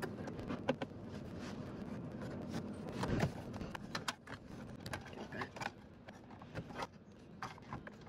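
Hard plastic centre console trim being handled and worked loose by hand: scattered clicks, knocks and plastic rubbing, with a louder knock about three seconds in.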